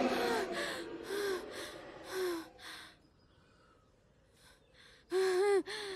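A woman gasping for breath in short, quick gasps that fade out about halfway through. After a pause, she gives a louder, brief strained cry near the end.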